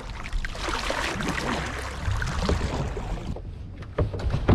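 Kayak paddle strokes splashing in the water. About three seconds in, the splashing stops and a few sharp knocks follow, the loudest near the end.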